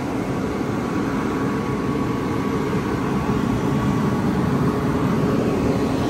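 Tesla Model 3 heat pump system running hard to warm a cold-soaked cabin: a steady whirring hum with a faint high steady tone over it.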